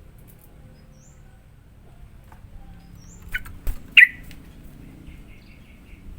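Yellow-vented bulbul (trucukan) giving a few short, sharp call notes, the loudest about four seconds in, with a knock just before it. Faint high chirps come earlier, and a quick run of faint notes comes near the end.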